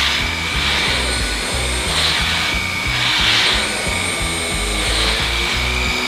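LG CordZero cordless stick vacuum running with a steady high whine and rushing air that swells a few times as the nozzle is pushed along the floor, over background music with a bass beat.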